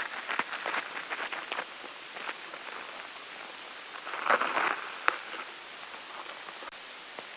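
Irregular light ticks and crackles from a close-recorded ladybug, over a steady hiss, with a denser burst of crackling about four seconds in and a single sharp tick just after.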